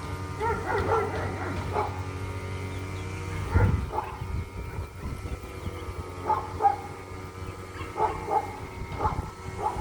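Dogs barking in the background, short barks coming in scattered clusters. A single low thump about three and a half seconds in.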